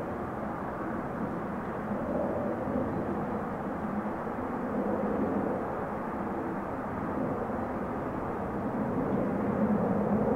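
Four-engine jet transport's turbofans running at a distance: a steady rumble with a low hum, growing a little louder toward the end.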